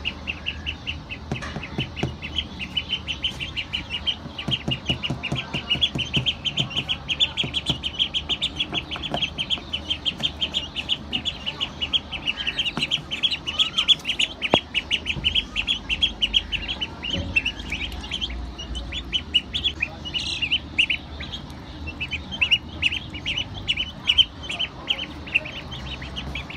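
Ducklings and a chick peeping continuously, with short high-pitched peeps several times a second.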